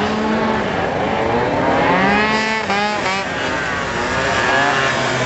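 Scooter engines revving, their pitch rising and falling, with one sharp climb and drop about two to three seconds in.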